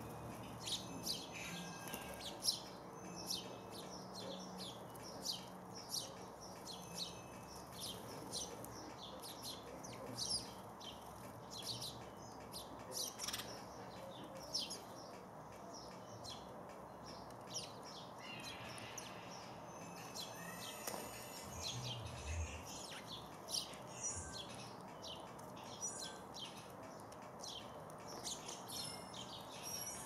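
A flock of house sparrows chirping, a busy, continuous run of short chirps with no pause.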